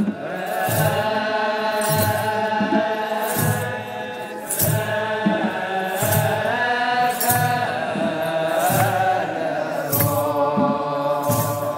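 A large group of Ethiopian Orthodox clergy chanting together in long held lines. A metallic rattling is shaken in a steady beat about once a second, with low beats in time with it.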